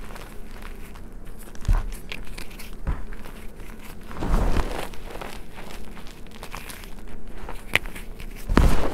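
Hands squeezing and crumbling powdered reformed gym chalk and small chalk lumps, giving soft, irregular crunches and crackles. Louder crunching comes about four and a half seconds in and again near the end.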